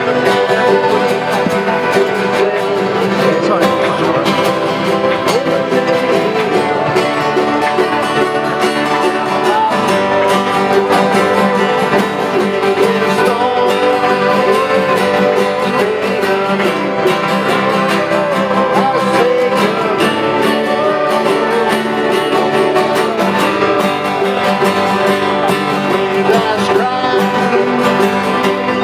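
A group of men singing a sea shanty together, accompanied by strummed acoustic guitars, with no break.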